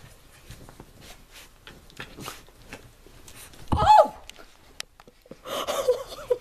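Faint rustling and light taps as a bull terrier puppy rolls and scrambles on a blanket. About four seconds in, a sudden loud thump with a short, falling vocal cry, and a brief voice near the end.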